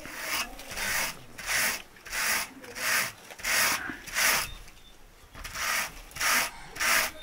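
Raw wool being worked with a hand wool card: rhythmic scratching strokes, about one and a half a second, with a short pause about five seconds in.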